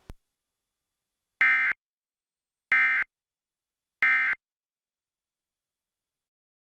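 Emergency Alert System end-of-message data bursts: three short, identical digital screeches about a second and a third apart, marking the end of the alert. A brief click comes just before them.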